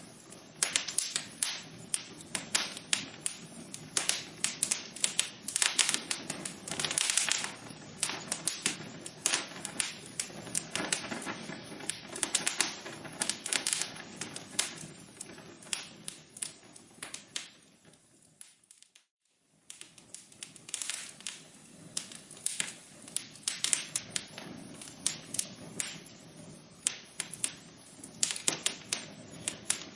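Wood fire crackling in a fireplace: dense, irregular pops and snaps over a low hiss. The sound dies away almost to nothing for a moment a little past halfway, then resumes.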